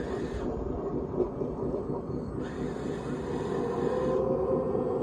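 A radio-controlled scale construction machine working: a steady mechanical grinding rumble from its motors and gears. About four seconds in, a motor whine joins and rises slightly in pitch.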